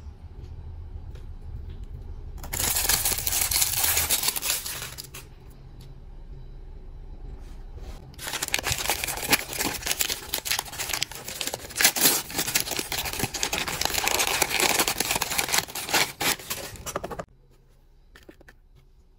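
Crinkly plastic wrapper pouch being torn open and crumpled by hand: a short spell of crackling a few seconds in, then a longer one through most of the second half that stops abruptly near the end.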